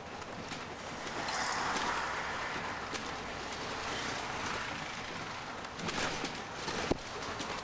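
Road vehicle running, heard from on board as a steady rumble and hiss that swells about a second in, with a single sharp click near the end.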